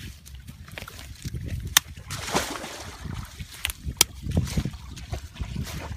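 Machete blade chopping and scraping at dry ground, with a few sharp clicks about two, three and a half and four seconds in, over low rumbling noise.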